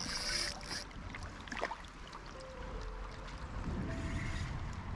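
River water running, with a low rumble of wind on the microphone and a brief high hiss lasting under a second at the start.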